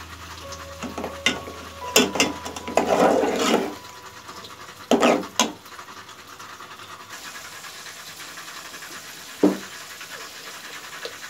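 Steel ladle scraping and knocking against an aluminium pot while stirring a thick potato masala, in a few short bouts of clinks and rasps, with a single sharp knock near the end.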